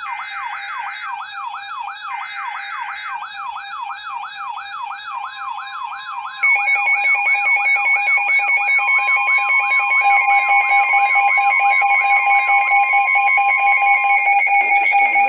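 Emergency Alert System tones on NOAA Weather Radio signalling a Winter Storm Warning: screechy data bursts at first, under a fast warbling siren-like alarm that sweeps up and down about three times a second. About six seconds in, a louder steady alert tone joins, and a single steady warning tone runs through the middle stretch.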